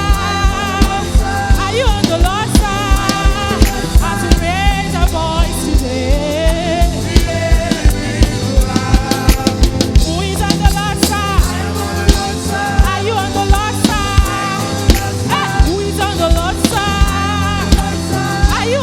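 Live gospel worship music: a band with a driving drum-kit beat and bass, with singing or a lead melody over it.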